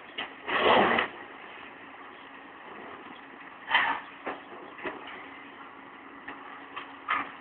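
High-reach demolition excavator pulling apart the top of a multi-storey building: a steady engine drone under sudden crashes of breaking masonry and falling debris. The loudest crash comes just under a second in, another near the middle, with smaller knocks after.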